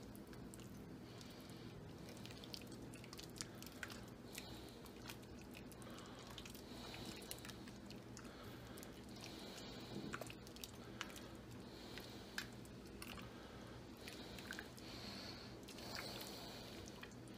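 Silicone spatula stirring thick chili in an enameled cast-iron Dutch oven: faint wet squelching and sloshing with scattered light clicks of the spatula against the pot, over a steady low hum.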